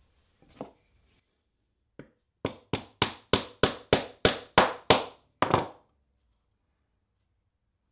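A soft-faced hammer tapping a marker dot into its hole in an ebony fretboard. One light tap, then a run of about ten quick, sharp taps at roughly three a second.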